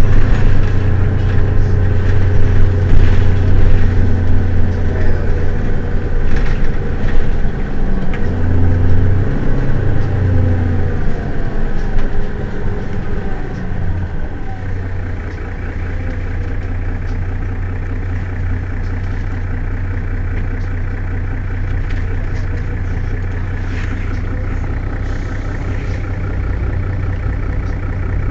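Mercedes-Benz Citaro city bus's diesel engine running, its speed rising and falling for the first half, then dropping to a steady idle about halfway through.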